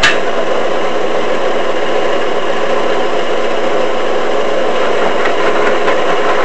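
Small tabletop drill press switching on at its slowest speed and running steadily as a 1-inch bit drills into a metal pulley hub.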